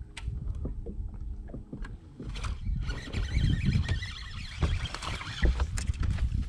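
Water splashing at the boat as a small hooked bass is fought and reeled in, over wind rumble on the microphone; the splashing picks up about halfway through.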